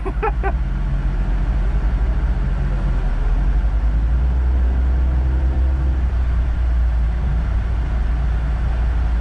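Stage 2 tuned Audi RS3's 2.5-litre turbocharged five-cylinder engine idling, a steady low drone.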